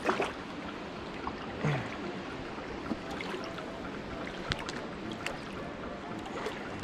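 Steady rush of water flowing below a dam spillway, with a knock near the start and a few short, faint clicks scattered through it.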